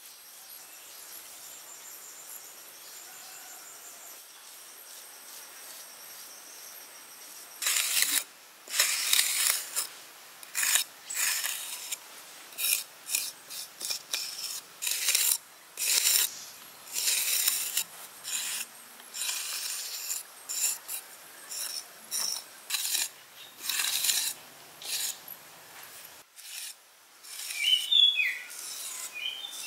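Repeated rasping, scraping strokes, irregular and each under about a second, starting about eight seconds in over a faint steady hiss; a few short high chirps near the end.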